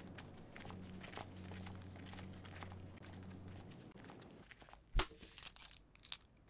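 A faint low hum fades out. About five seconds in there is a sharp click, then a brief flurry of small crinkles and rustles from a paper packet and cloth being handled on a table.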